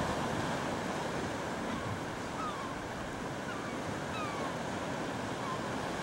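Steady wash of sea surf and wind on the microphone, with several faint, thin, falling peeps from about two seconds in, typical of herring gull chicks begging for food.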